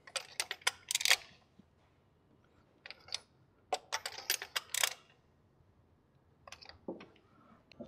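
Hand ratchet clicking in quick runs as spark plugs are tightened. There are four short bursts of clicks with brief pauses between them.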